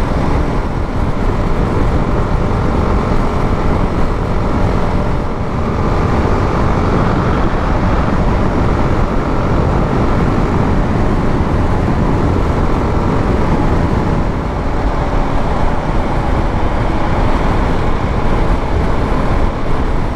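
Motorcycle ridden at speed on an open highway: a steady rush of wind and road noise with the engine running underneath, evenly throughout.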